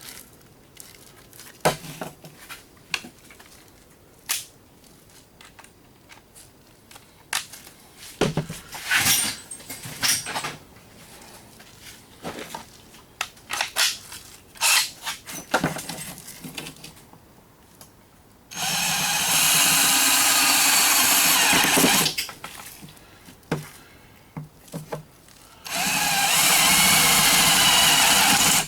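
Scattered knocks and clicks of handling tools and metal parts, then an electric drill run twice, each time for about three seconds, drilling out the rivets that hold the can opener together.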